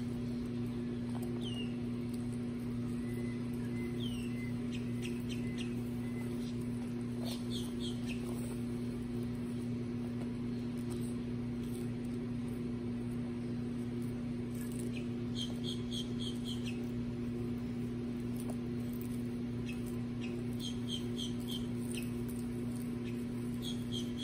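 A steady low hum runs underneath, with short runs of three to five quick high chirps every few seconds, likely small birds. Faint scattered clicks fit baby Aldabra giant tortoises munching lettuce.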